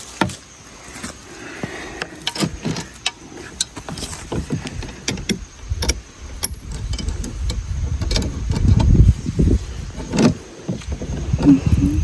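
Small metal parts of a knapsack sprayer's pump lever clicking and rattling against its plastic tank and frame as the lever is fitted and its nut is worked with pliers, with a low rumble of handling in the middle.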